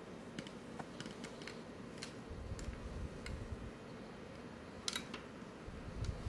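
Small scattered clicks and taps from a toddler handling a camera tripod's metal leg and plastic leg clamp, with low thumps as the tripod is jostled about two seconds in and again near the end.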